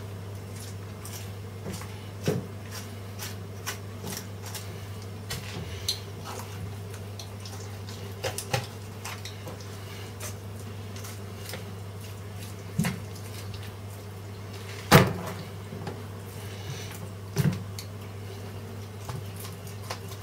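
Cold Steel Spectre knife with a San Mai III blade cutting up a raw chicken on a plastic cutting board: scattered knocks and clicks of the blade and bird against the board, the loudest about fifteen seconds in, over a steady low hum.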